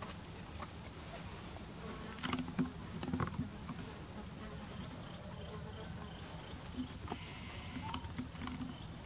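Insects buzzing: a steady high drone, with a lower buzz that comes and goes twice, about two to three seconds in and again near the end. A few light clicks sound around two to three seconds in.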